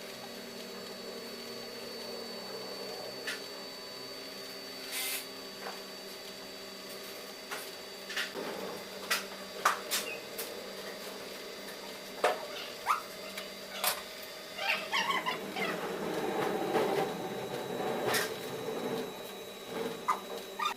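Large 3D printer running: a steady motor hum with several held tones, and scattered sharp clicks and knocks that get busier in the second half.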